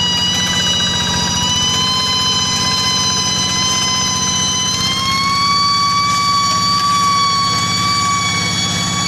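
Rice-field tractor ploughing, its engine rumbling under a loud, steady high-pitched whine, the "nging" it is known for. The whine steps up slightly in pitch about five seconds in.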